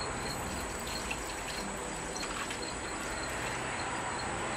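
Water pouring steadily from a plastic pitcher into the Slow-N-Sear's water reservoir in a charcoal kettle grill, filling it.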